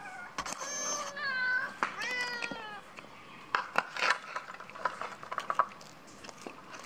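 A hungry cat meowing about three times in quick succession, followed by sharp clicks and clatters as fish bones and scraps are tipped onto a china plate.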